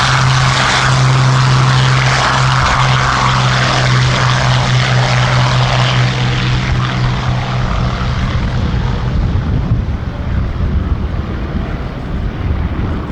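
Hawker Hurricanes' Rolls-Royce Merlin V12 engines droning in flight. The steady note fades from about seven seconds in as the aircraft move away, leaving a low rumble.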